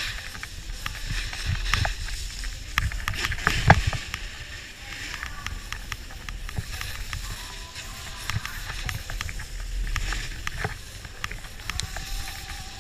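Snowboard sliding and scraping over packed snow, with a low rumble and frequent clicks and knocks from the board and camera pole, the loudest knock about three and a half seconds in.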